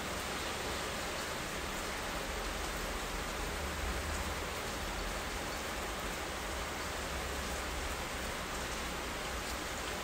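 Steady rain falling: an even hiss of rain with a low rumble underneath and a few faint drop ticks.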